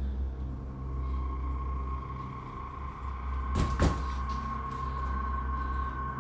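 A low steady drone under a steady high ringing tone that comes in about a second in, with a second, higher tone joining later, typical of horror-film sound design. A little past the middle, two sharp knocks like a cupboard or door being bumped cut through.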